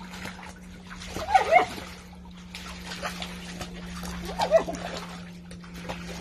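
A dog splashing about in a plastic paddling pool of shallow, foamy water, with two short whining calls, one about a second and a half in and another around four and a half seconds in.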